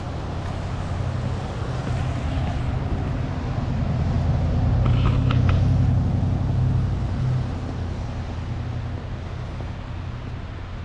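Road traffic: a steady low rumble that swells as a vehicle passes, loudest about five to six seconds in, then fades.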